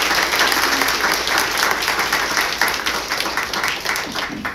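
Audience applauding, many hands clapping densely and loudly, then dying away quickly right at the end.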